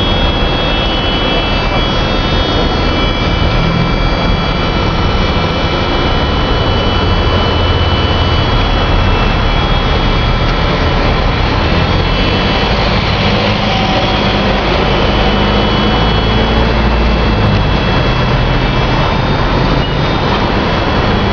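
Loud, steady machine running: a constant low rumble with several high, even whining tones over it.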